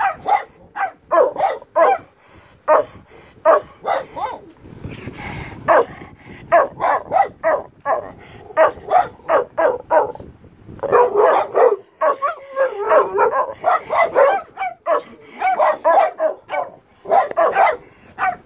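Dog barking over and over in quick runs of several barks a second, with short pauses between the runs.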